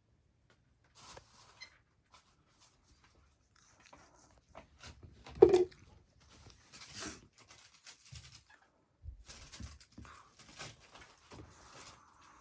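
A kitten mews once, briefly, about five and a half seconds in, among soft intermittent rustling and scratching sounds.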